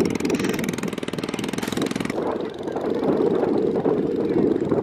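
Tractor diesel engine running steadily at a low, even rhythm. The sound becomes rougher and less even about two seconds in.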